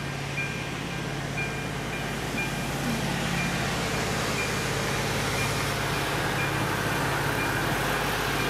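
Electronic bell of an AŽD 97 level-crossing warning signal ringing about once a second. The engine of an approaching track-maintenance machine grows steadily louder and gradually drowns the bell out.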